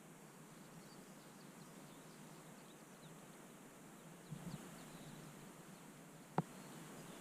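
Quiet mountain ambience: a faint steady hiss with scattered faint, short high chirps. A couple of soft low bumps come about four seconds in, and a single sharp click, the loudest sound, comes near the end.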